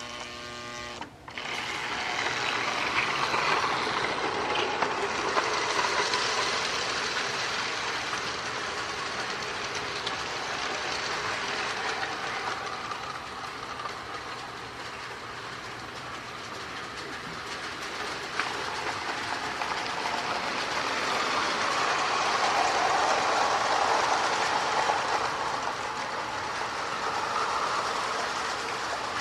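Marx E7 model diesel locomotive with a power-pulling motor running on its track: a steady motor whir with wheels clicking over the rails, starting about a second in and growing louder and fainter as it moves nearer and farther.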